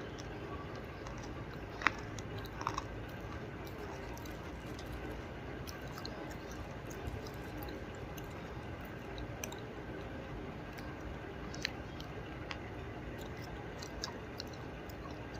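A person chewing earthy edible clay at the mic, mostly soft chewing with a few sharp crunches, the loudest about two seconds in.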